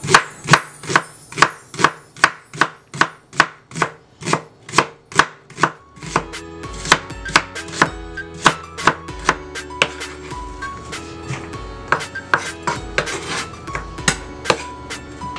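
Kitchen knife slicing a red onion on a wooden cutting board: a steady run of sharp knife strikes against the board, about two to three a second.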